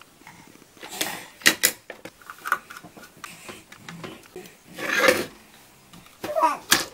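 Handling and fitting graphics-card parts together: a few sharp clicks and knocks of a metal backplate and bracket against the circuit board and the wooden board beneath, with rubbing and scraping between them.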